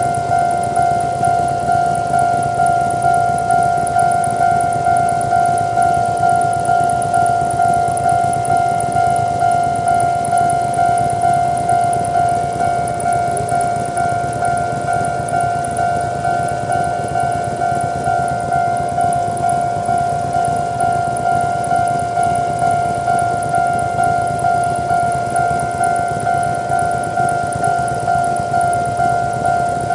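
Japanese railway level-crossing electronic warning bell of the old standard type, ringing continuously with an even, steady ding repeated about one and a half times a second.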